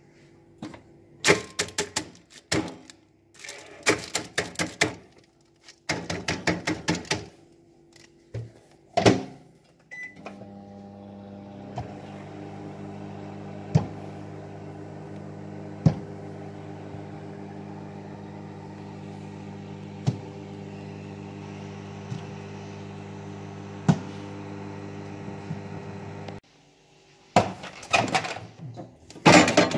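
Samsung microwave oven: clattering knocks and a thud as the plate and door are handled, then the oven runs with a steady hum and a sharp click about every two seconds for some sixteen seconds. The hum cuts off suddenly, and more clattering follows.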